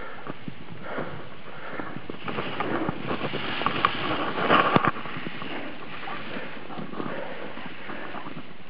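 Skis scraping over snow as a skier turns past close by, loudest and most crackly between about two and five seconds in, over a steady rush of wind on the microphone.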